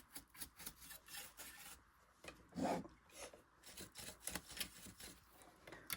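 Faint, irregular scratching and rubbing from cleaning the dusty insides of a Singer Genie sewing machine, with one short, louder low sound about two and a half seconds in.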